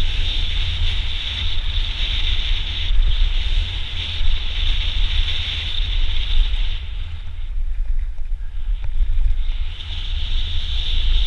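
Mountain bike rolling fast down a rocky dirt trail, with wind buffeting the camera microphone as a heavy rumble. A steady high buzz rides over it, drops out about two-thirds of the way through and comes back near the end.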